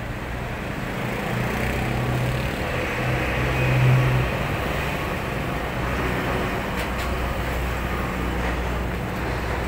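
Road traffic passing close by: car and truck engines and tyres on the road. The noise swells to its loudest about four seconds in as a heavy truck goes past.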